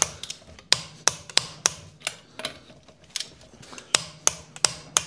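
Click-type torque wrench tightening wheel bolts to 160 Nm: a string of sharp clicks, several in the first two and a half seconds and more near the end. The wrench's click is the sign that the set torque has been reached.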